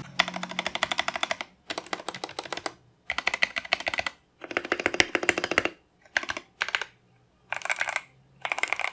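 Mechanical keyboard with Outemu Black linear switches being typed on in quick runs of keystrokes, about seven bursts with short pauses between, the later ones shorter.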